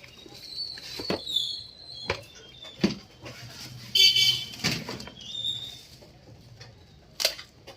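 Sharp knocks and clicks of a computer power supply being handled and seated in a metal ATX case, a few strokes spread out irregularly. A brief high-pitched squeal about four seconds in is the loudest sound, with fainter high chirps about a second in.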